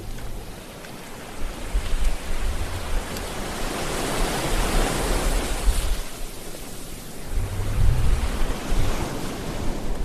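Sea waves breaking and washing in: a steady hiss of surf that swells to a peak about halfway through, then ebbs, with low rumbles as waves break.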